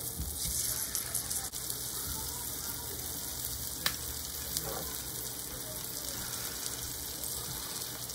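Chicken thighs frying skin side down in hot oil in an electric skillet: a steady sizzling hiss, with one sharp click about four seconds in.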